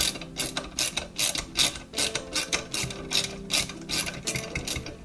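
Small 8 mm ratchet wrench clicking in quick, uneven runs of several clicks a second as it unscrews the small screws of the cable-retaining plate inside a Vespa 50 N handlebar.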